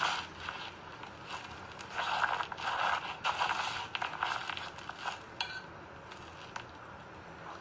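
A fork scraping and clicking on a plate of noodles, with rustling handling noise. The scraping comes in a run about two to four and a half seconds in, and a few sharp clicks follow.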